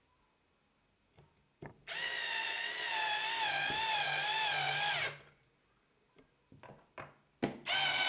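Electric drill-driver driving screws into the cover of the box. Its whine wavers in pitch for about three seconds and comes back briefly near the end, with light clicks and knocks in between.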